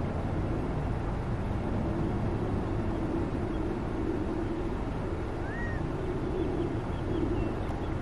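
Steady low background rumble, with a single faint bird note about five and a half seconds in that rises and then falls, and a few faint chirps near the end.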